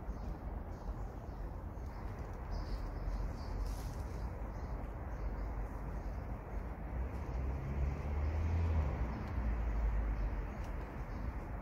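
Steady outdoor background noise with a low rumble that grows louder about eight seconds in.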